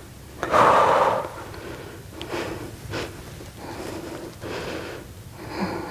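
A woman breathing hard from exertion: a loud exhale about half a second in, then quieter breaths.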